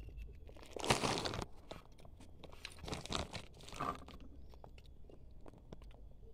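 A crisp bolu emprit, a cassava-flour and coconut-milk cookie, being bitten and chewed: one loud crunch about a second in, then more crackly crunches around three and four seconds, with small crackles between.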